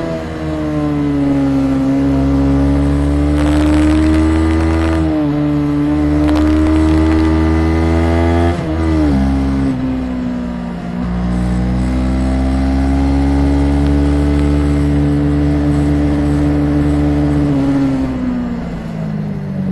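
Honda CB500 parallel-twin engine under way on the road. Its pitch climbs slowly, drops sharply at gear changes about five and nine seconds in, and falls away near the end as the bike slows. Bursts of crackling noise from a badly set external recorder come in around four and seven seconds.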